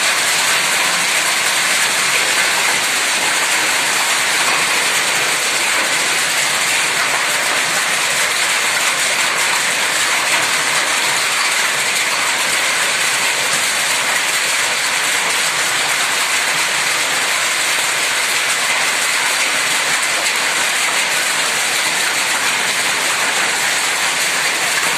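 Heavy hail falling with rain, hailstones hitting the ground and surroundings in a dense, steady clatter that never lets up.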